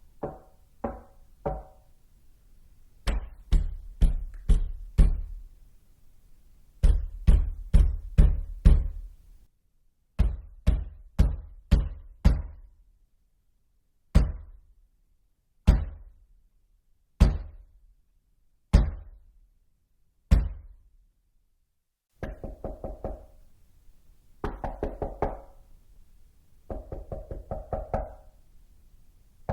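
Knocking on a door in several sets. First come a few light knocks, then three sets of five heavy knocks, then five slow single knocks about a second and a half apart. Near the end there are three quick runs of rapid, lighter raps.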